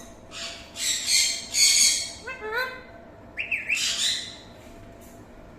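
Parrot giving a series of harsh, raspy screeches, with short rising whistled notes about two and a half seconds in, and a last shriek with quick upward glides around four seconds in.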